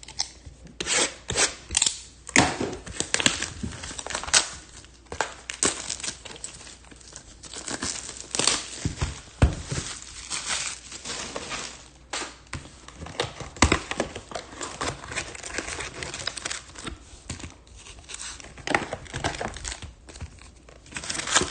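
Plastic wrapping on a trading-card hobby box being torn open and crinkled by hand: a run of irregular crackles and sharp rips.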